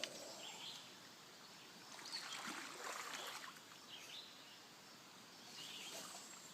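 Faint outdoor background noise, with a few brief, faint high chirps scattered through it.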